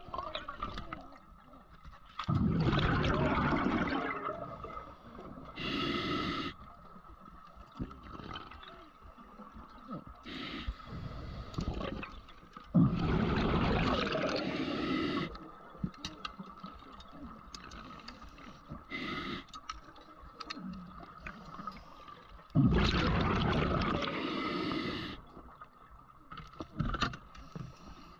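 Scuba diver breathing through a regulator underwater: a burst of bubbles on each exhale, three of them about ten seconds apart and each about two seconds long, with a shorter hiss of inhaled air between them. A faint steady whine runs underneath.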